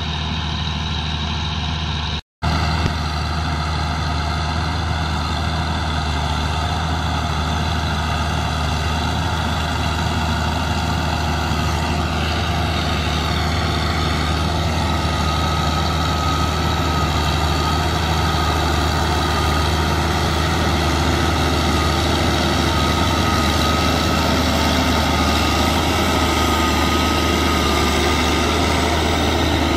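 Caterpillar Challenger 95E tracked tractor's six-cylinder diesel running steadily under load while pulling a four-furrow plough, slowly growing louder as it draws near. A thin steady whine joins about halfway through. The sound drops out briefly about two seconds in.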